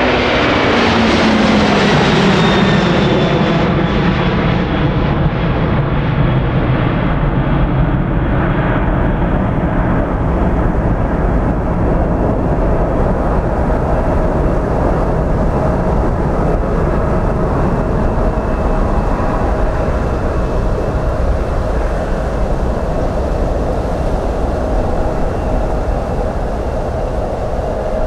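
Boeing 767-300 twin-jet airliner climbing out at takeoff thrust. Its engine whine drops steeply in pitch in the first couple of seconds as it passes, then settles into a steady jet roar that grows duller as the aircraft recedes.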